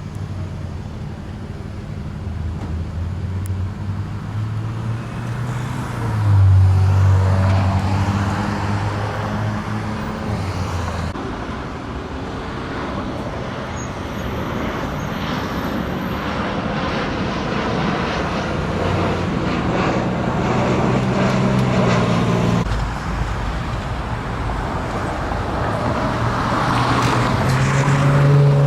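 Road traffic going by: a steady hiss of tyres with the engine hum of passing vehicles, one of them loudest about six seconds in and others around twenty seconds and near the end.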